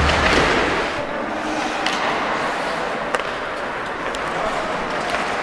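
Ice hockey play on a rink: steady scraping of skates on the ice, with a few sharp stick-and-puck clacks.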